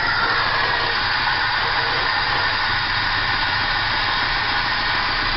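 Car engine idling steadily with a strong hiss over it. The owner hears a strange knock in this engine that appeared after a full service and reassembly.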